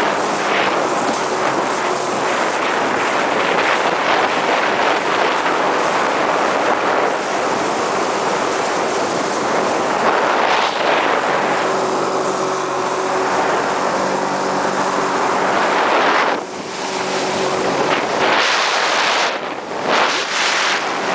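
Wind buffeting the microphone and rushing water as a Sea-Doo GTI SE 155 personal watercraft runs at speed over open sea. Its Rotax 1503 four-stroke three-cylinder engine hums steadily underneath, plainer from about halfway. The rush drops away briefly twice near the end.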